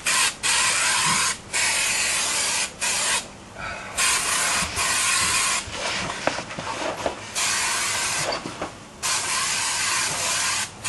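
Aerosol can of spray adhesive spraying in a series of hissing bursts, each about a second long, with short pauses between them.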